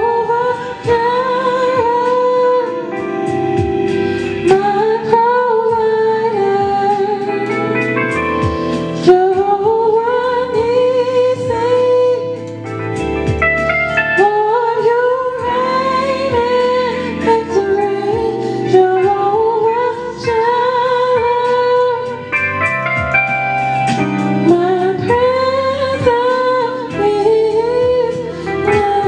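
Gospel worship music: a woman singing long phrases with vibrato over sustained instrumental chords.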